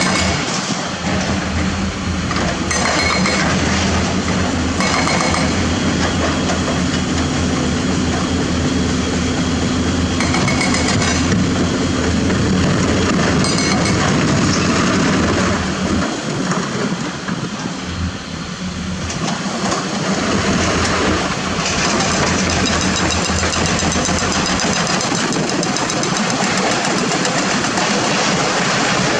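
Diesel engine of a Mitsubishi Fuso dump truck running steadily while the truck raises its tipper bed, with light metallic clinks now and then in the first half. The engine noise dips briefly a little past the middle, then picks up again.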